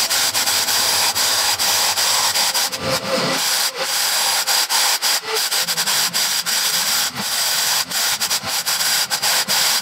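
Makita electric demolition hammer fitted with a wide scraper blade, running continuously as it chips and scrapes old flooring adhesive off a concrete floor: a loud, steady, hissing clatter with many brief dips.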